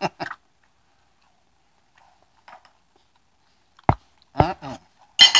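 A man eating from a fork: a single sharp knock about four seconds in, then short chewing and mouth sounds as he takes a bite.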